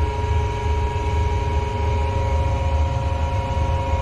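Steady machinery drone: a low, gently pulsing rumble with a few steady hum tones over it.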